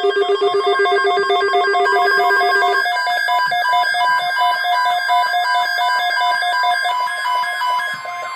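Synthetic emergency-alert tones opening an EAS tornado-watch message: a fast-pulsing low tone under higher beeps for about three seconds, then beeps alternating between a few fixed pitches, with a steady tone setting in near the end.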